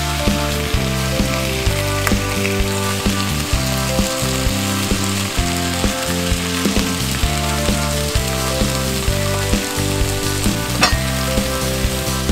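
Chicken livers and onions sizzling as they fry in an enamelled cast-iron pot, stirred and spread with a silicone spatula. Background music with changing notes plays over the sizzle.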